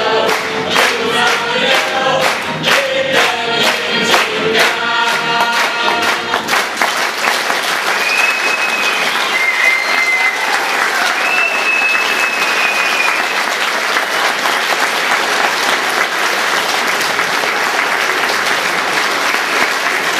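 The cast sings a closing song while the audience claps along on the beat. About six and a half seconds in, the song ends and gives way to steady audience applause, with a few high whistles in the middle.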